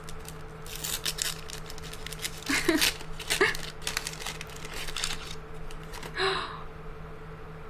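Wrapping crinkling and tearing in short bursts as a small packet is pulled open by hand, over a steady low hum.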